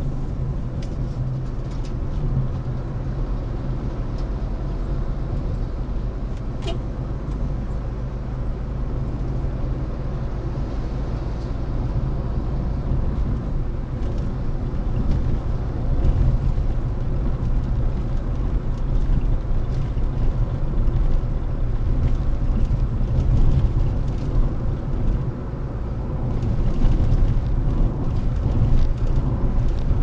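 Car driving along the expressway: a steady low rumble of engine and road noise that swells slightly at times.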